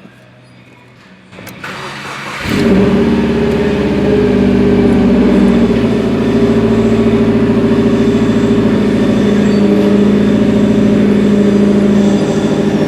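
Subaru WRX's turbocharged EJ255 flat-four being started: a click and brief cranking, then it catches about two and a half seconds in and settles into a steady idle. This is the rough idle being diagnosed.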